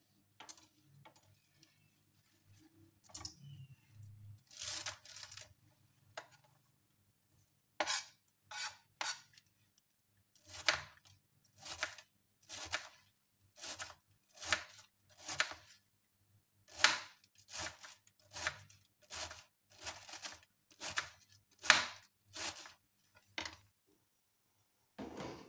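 Kitchen knife chopping a bunch of fresh spinach stalks on a plastic cutting board: a long run of crisp single cuts, each knocking onto the board, a little over one a second. A few softer handling sounds come before the chopping starts.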